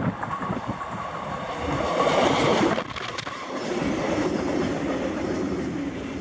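KiwiRail DL-class diesel locomotive hauling a freight train past close by. The sound is loudest as the locomotive goes by about two seconds in, then the wagons rumble and clatter over the rails.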